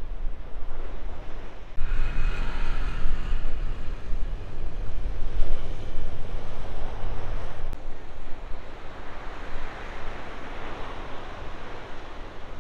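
Wind rumbling on the microphone over the wash of breaking ocean surf. The sound changes abruptly twice, about two and eight seconds in, getting quieter and less rumbly after the second change.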